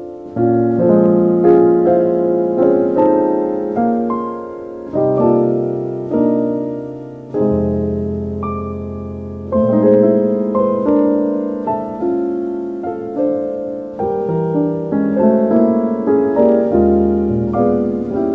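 Slow, gentle piano music: chords and a melody, each note struck and left to fade.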